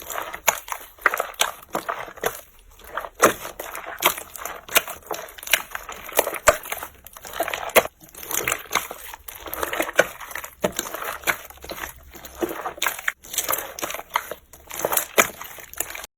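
Slime being squeezed and pressed by hand, with a dense, irregular run of sharp clicks, pops and crackles.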